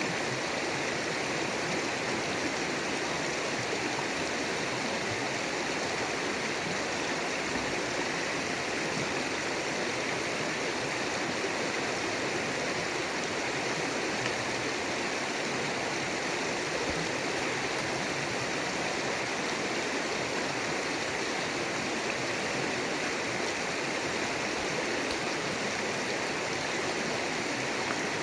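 River water flowing and rushing over stones, a steady even rush with no let-up.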